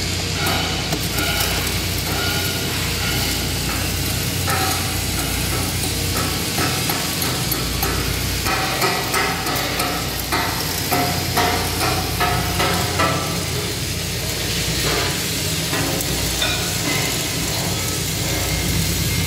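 Flux-cored arc welding on a vertical steel seam: the arc crackling and sizzling steadily over a low, steady hum.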